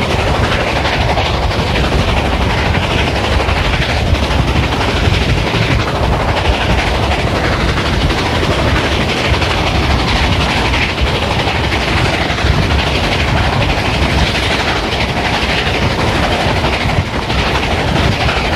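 A train hauled by Reading 2102, a 4-8-4 steam locomotive, running along the track: a loud, steady rumble of wheels on rail.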